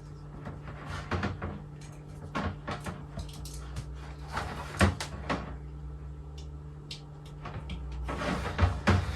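Irregular knocks, clicks and scrapes of plastic being handled as a submersible water pump and its wire are worked into a plastic fresh-water container, coming more thickly near the end.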